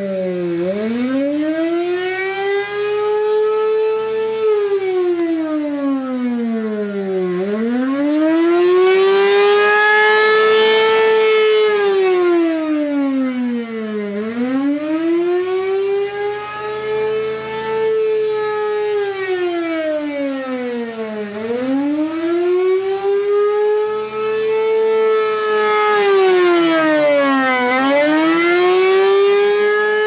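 Gasoline-powered B&N Mobil Directo BN52G siren sounding, really loud: its wail climbs over a few seconds, holds, then slides back down, repeating about every seven seconds. The loudness swells and fades as its rotating horn turns.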